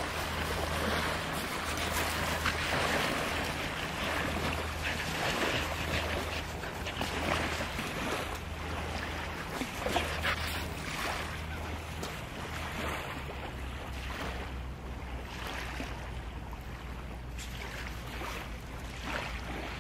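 A Wheaten Terrier digging in beach sand with its front paws, a run of quick scratchy scrapes, over small waves washing ashore and wind on the microphone. A low steady hum runs underneath.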